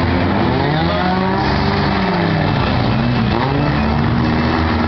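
Engines of several four-cylinder demolition-derby cars revving at once, their overlapping pitches rising and falling as the drivers accelerate and back off.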